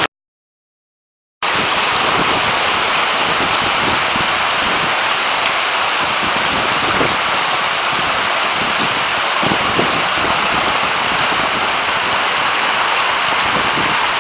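Heavy thunderstorm rain pouring down: a dense, steady hiss that comes in suddenly about a second and a half in, after dead silence.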